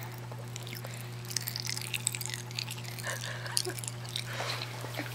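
Pop Rocks candy crackling and popping in a mouth: many small, irregular snaps and clicks over a steady low hum.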